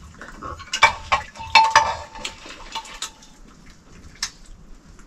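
Metal kitchen utensils knocking and scraping against metal pots and dishes, several uneven clinks. One knock about a second and a half in leaves a brief metallic ring.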